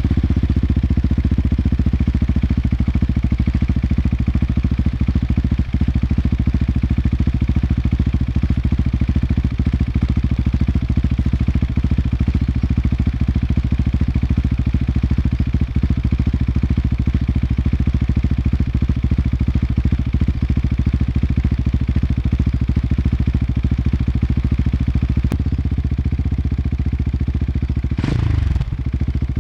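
KTM 690 SMC R's single-cylinder engine, breathing through a Tekmo titanium racing exhaust with an Arrow muffler, idling steadily just after starting. Near the end it gets a quick blip of the throttle.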